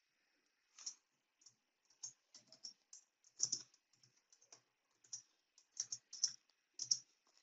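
Faint, irregular keystrokes on a computer keyboard: about a dozen separate key presses, typed at an unhurried pace with gaps between them.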